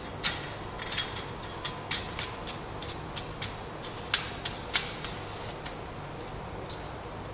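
Irregular light metal clicks and clinks of the antenna's metal mounting bracket and its fittings being handled and fitted onto the antenna boom, about a dozen and a half sharp ticks that die away after about six seconds.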